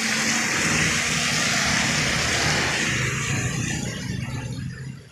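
A van passing close on a wet road: its tyres hiss through the surface water over the low hum of its engine, loudest at first and dying away over the last second or so.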